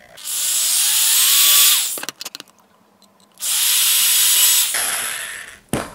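Handheld Black & Decker power drill with a 1/16 inch bit drilling pilot holes into a model rocket's wooden base bulkhead: two short runs of about a second and a half each, the motor whine climbing in pitch as it spins up. A few clicks come between the runs and a knock near the end.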